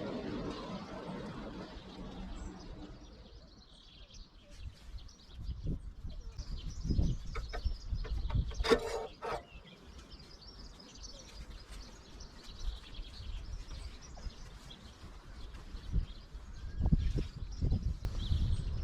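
Wind buffeting the microphone in irregular low gusts, with small birds chirping now and then. About halfway through comes one short pitched squeal.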